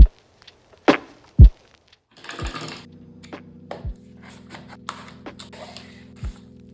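Deep booming bass hits that drop in pitch, the loudest about a second and a half in, then a held music chord from about two seconds on, with crisp clicks and taps over it from a 60% mechanical keyboard with red switches being handled and typed on.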